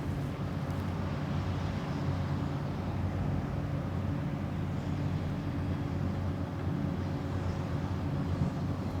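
Combine harvester running steadily at constant speed, a low, even engine note with machinery noise over it.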